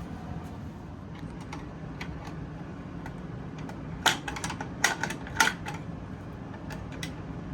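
Sharp clicks and light clatter of small plastic and metal parts being handled, bunched together a little past the middle, over a steady low hum.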